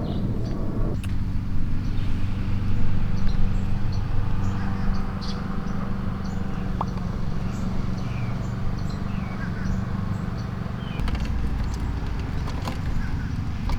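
An engine running steadily at idle, with faint scattered clicks and small chirps above it.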